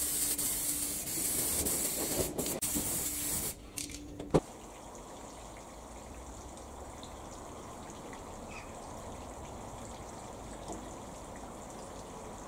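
Aerosol spray can hissing in short spurts for about three and a half seconds, then stopping. A single sharp click follows soon after, then only a low, even background.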